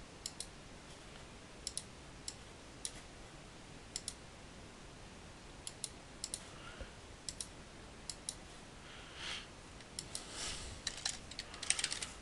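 Faint clicks of a computer mouse and keyboard, many in quick pairs, spaced out by a second or more, with a denser run of clicks and keystrokes near the end.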